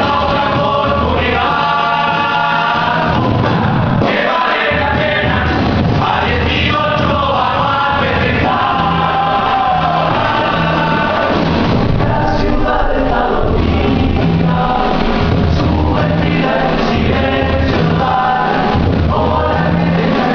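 Music with several voices singing together over an instrumental accompaniment with a moving bass line.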